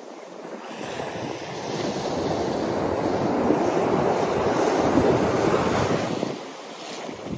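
Surf breaking and washing up a sandy beach close by: the rush of one wave swells over a few seconds and then fades away near the end.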